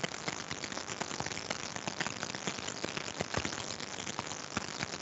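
Steady crackling static on the video call's audio: dense, irregular clicks and pops over a hiss, a transmission fault that the hosts suspect is a nationwide connection problem.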